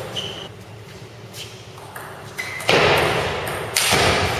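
Table tennis ball clicking off paddles and the table in a rally, a few sharp pings over the first couple of seconds. These are followed by two loud rushing noises of about a second each near the end.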